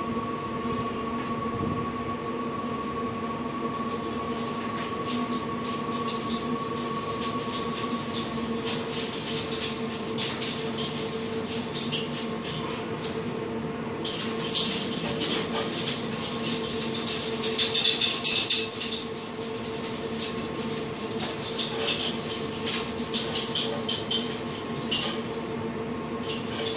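Steady mechanical hum of a motor running. Over it, in the second half, comes a run of irregular clicks and scuffs, loudest a little past the middle.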